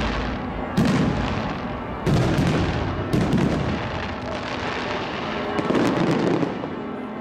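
Fireworks display: aerial shells bursting with loud bangs, three of them about a second apart in the first few seconds, each trailing off in a low rolling rumble. Smaller cracks and crackling come later.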